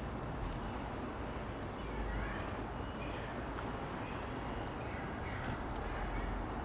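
Small backyard songbirds chirping faintly and sporadically, with one sharp high peep a little past halfway, over a steady low background rumble.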